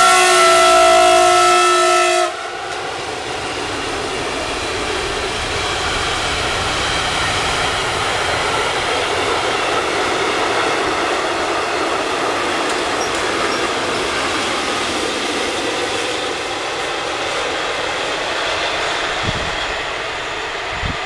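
Siemens Vectron electric locomotive's horn sounding a long multi-tone blast, the Polish Rp1 'attention' warning signal, which cuts off abruptly about two seconds in. Then freight wagons roll past on the rails with a steady clatter that slowly fades.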